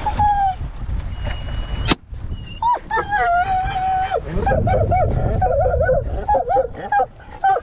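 Excited hunting dogs whining and yelping in high, wavering, rising-and-falling cries during the mink hunt. A single sharp crack comes about two seconds in.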